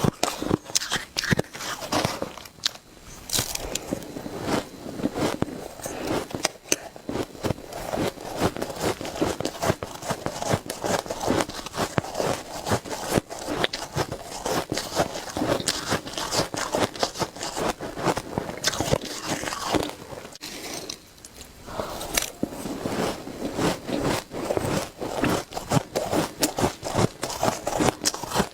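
Shaved ice being bitten and chewed close to the microphone: continuous dense crunching and crackling, with a brief lull about three-quarters of the way through.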